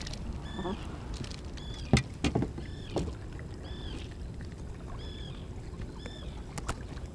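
Handling noise in an inflatable boat as a hooked perch is brought in: a few sharp knocks over a steady low rumble of wind and water. A short high chirp repeats every second or two throughout.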